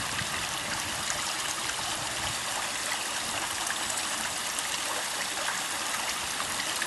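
Steady, unbroken trickle of moving water in a backyard pond.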